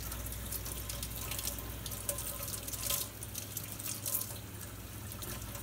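Kitchen faucet running a steady stream of cold water into a stainless steel sink, splashing over a roasted green chile held in the hands beneath it.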